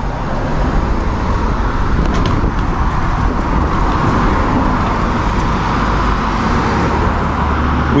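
Road traffic noise: a steady rush of cars going by, swelling from about a second in and easing near the end, over a low rumble.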